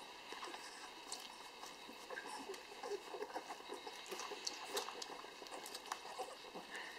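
Busy irregular wet clicking and smacking from Schnauzer puppies suckling at their mother, mixed with the mother's crunching of dry kibble.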